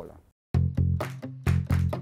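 Background music comes in about half a second in after a brief silence: low bass notes under a steady beat of about four strokes a second.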